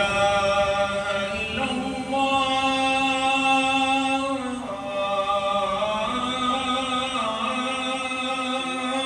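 Adhan (Islamic call to prayer) chanted by a muezzin: long, drawn-out ornamented notes of the line 'ashhadu an la ilaha illallah', with a short break and a fall in pitch about four and a half seconds in.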